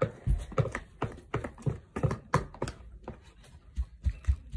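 Irregular sticky taps and clicks, about two or three a second, some with a dull thump, from homemade glue slime being mixed in a pink cup.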